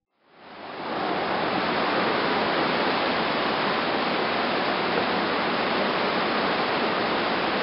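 A waterfall's steady rush of falling water, fading in over the first second and then holding even.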